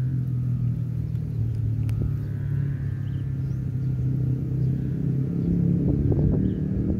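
A steady low engine drone, with a couple of faint clicks about two seconds in and near the end.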